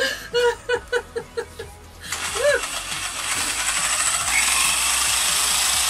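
A woman laughs in short bursts, then about two seconds in a power drill spinning a blender jar starts up and runs steadily with a high whine, blending a smoothie. The drill stands in for the blender motor and spins slower than the original blender.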